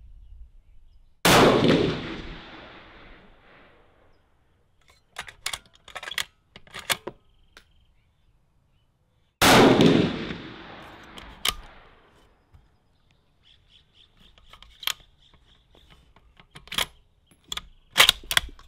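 Two shots from a 6.5 Creedmoor bolt-action rifle with a carbon-fibre barrel, about eight seconds apart, each dying away in a long echo. Between and after the shots the bolt is worked, a run of short metallic clicks.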